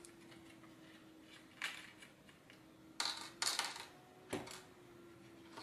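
Small plastic zip bag crinkling in short bursts as M3 bolts and nuts are taken out of it, then a sharp tick of a small metal part set down on the table about four seconds in. A faint steady hum runs underneath.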